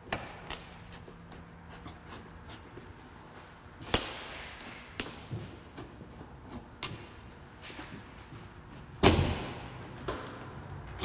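Windshield removal knife being worked through the urethane adhesive at the edge of the glass: sharp snaps and clicks at irregular intervals of a second or so, the loudest about nine seconds in.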